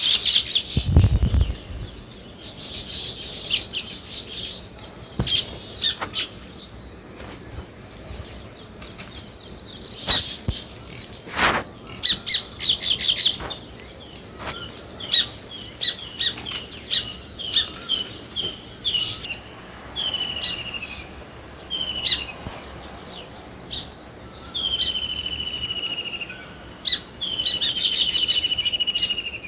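Small songbirds chirping, scattered short high chirps throughout, with longer buzzy trills in the last few seconds. A low thump comes about a second in and a sharp click near the middle.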